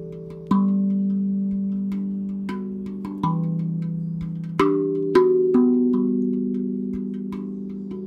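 Sonavi steel tongue drum played with the fingers: a slow melody of single struck notes, each ringing on and overlapping the next.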